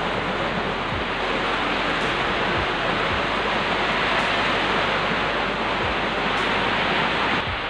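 Heavy typhoon rain: a loud, steady rush of noise that eases slightly near the end.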